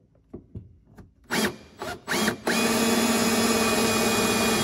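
Cordless drill boring a pilot hole up through a boat's fiberglass hull. A few short trigger blips, each with the motor whining up in pitch, then from about two and a half seconds in the drill runs steadily under load.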